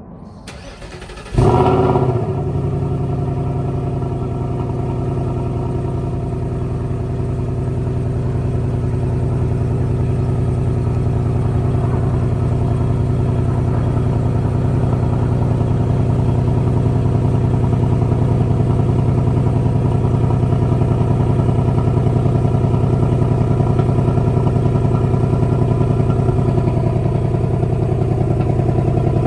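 2024 S650 Mustang GT's 5.0-litre Coyote V8 cold-starting through the standard, non-active exhaust. It catches about a second in with a brief flare of revs, then settles into a steady cold idle.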